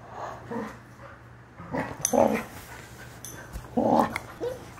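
Two puppies, a goldendoodle and a dark-coated pup, play-fighting, one of them giving short vocal bursts; the loudest come about two seconds in and again near four seconds.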